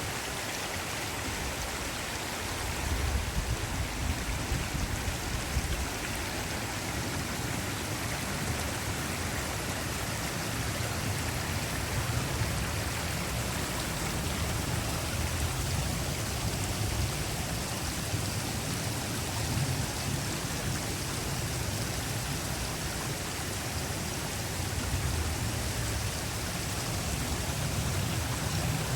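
Steady rushing hiss of running water, with uneven low wind rumble on the microphone from about three seconds in.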